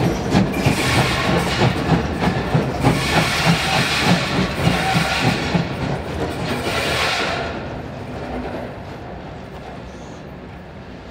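DR class 03 steam locomotive working under steam: a steady exhaust beat of about two chuffs a second over loud hissing from its open cylinder drain cocks. The beat and hiss die away about seven seconds in.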